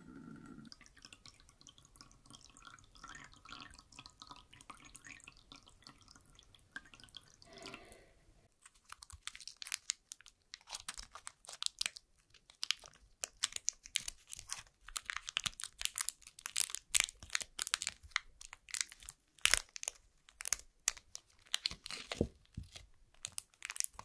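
Water streaming from the tap of a samovar for about eight seconds. Then the crisp crackling and tearing of a 'Love Is' bubble gum wrapper and its paper insert being unwrapped by hand, which is louder.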